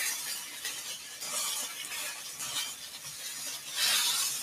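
Beef short rib frying in a pan, with irregular stirring and scraping strokes of a utensil against the pan; the loudest scrape comes near the end.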